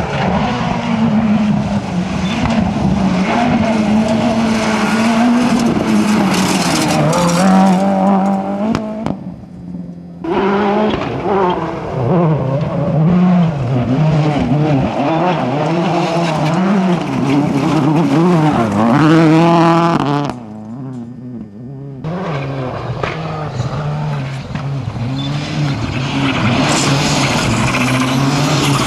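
Rally cars driven hard, their engines revving up and falling back through the gears, with tyre squeal. The sound drops away abruptly about nine and about twenty seconds in, where one passage gives way to the next.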